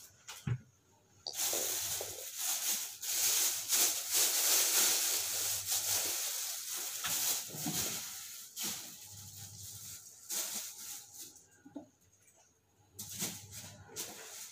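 Rustling and handling noise of clothes being moved about, with scattered small clicks and knocks. It is loudest for several seconds from just over a second in, then fades to intermittent rustles and comes back briefly near the end.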